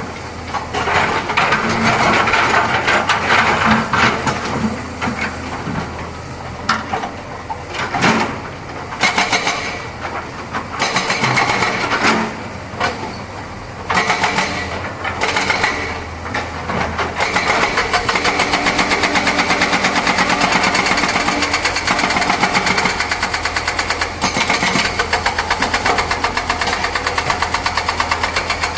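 Hydraulic excavator at work: its diesel engine running under load. There are several sharp knocks in the first half, and from a little past halfway the engine settles into a steady, rapid beat.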